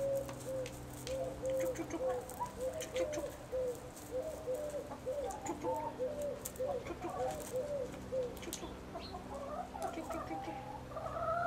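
Ex-battery hens clucking softly, a run of short repeated calls a few times a second, with a higher, louder call near the end.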